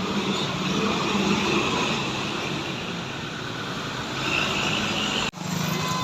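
Road traffic with large buses passing, a steady rushing engine and tyre noise. It breaks off abruptly for an instant about five seconds in, then resumes.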